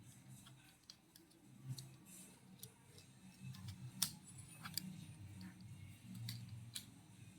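Faint, scattered small clicks and taps of hands handling a Dell Inspiron 1545 laptop's plastic case and keys, the sharpest click about four seconds in, over a low steady hum.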